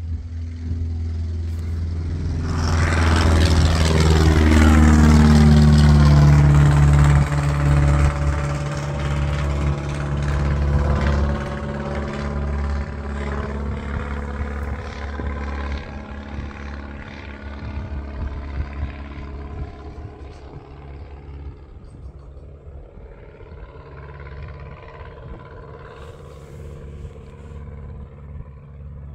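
Cessna 140's flat-four engine and propeller at full takeoff power, passing close by with a falling pitch about three seconds in and loudest a few seconds later, then fading steadily as the plane climbs away.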